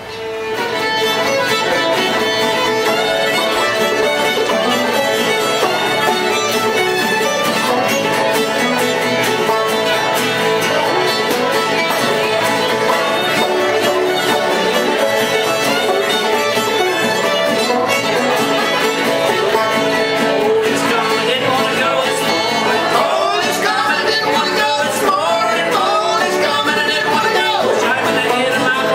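Old-time string band playing: a bowed fiddle carries the tune over a strummed acoustic guitar and a banjo. The music swells in about half a second in and then runs on at a steady level.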